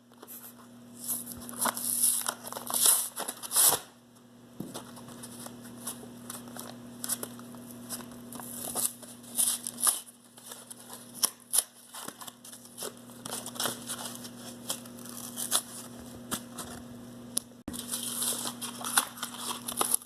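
Plastic balisong trainer being flipped: its handles clack and click irregularly, mixed with rustling handling noise.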